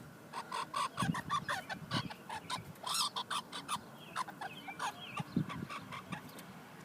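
Young red squirrel chirping: a rapid string of short calls, turning to fainter, higher squeaks in the second half.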